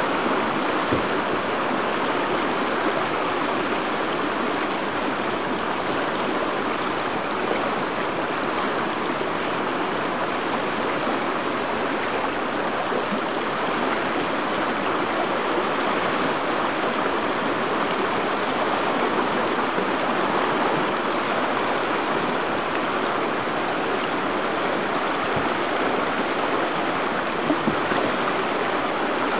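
River whitewater rapids rushing steadily, a continuous churning of water.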